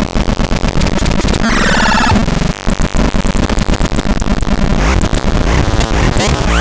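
Dense electronic noise: loud static packed with rapid clicks, with a warbling tone cluster about two seconds in, a run of short high beeps, and a rising glide near the end.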